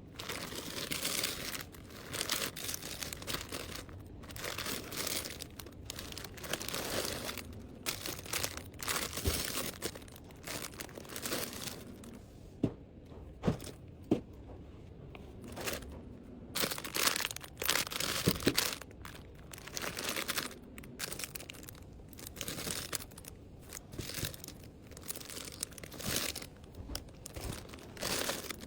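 Packaging crinkling and rustling as items are handled, in irregular bursts, with a few sharp taps around the middle.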